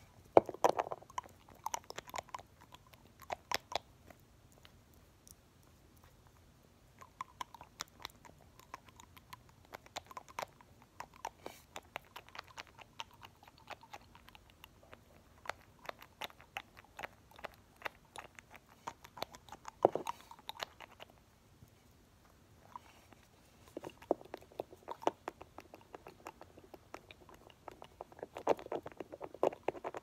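Close-miked clicks and taps of a glass nail polish bottle and its cap as the brush wand is pumped in and out of the bottle, coming in irregular flurries with two short pauses and one sharper click about two-thirds of the way in.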